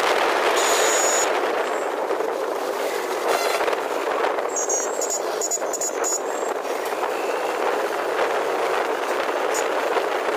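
Steady traffic and road noise heard from a moving two-wheeler in town traffic, an even rushing sound with no clear engine note. A few brief high chirps come about five seconds in.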